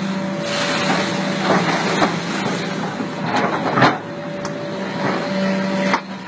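Muddy stream water rushing and churning as an excavator bucket dips into it, over the steady hum of the excavator's engine. Several sharp splashes come through, the loudest about four seconds in.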